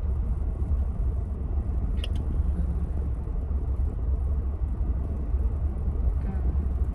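Steady low rumble inside a parked car's cabin with the engine idling. One short sip through a drinking straw comes about two seconds in.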